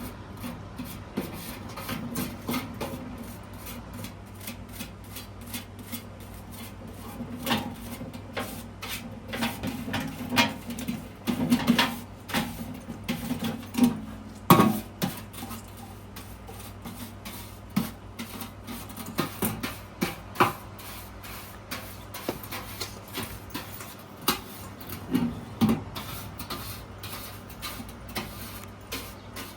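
Irregular knocks, clicks and rubbing from the removed HVAC blower housing being handled and moved, with the loudest clunks about halfway through.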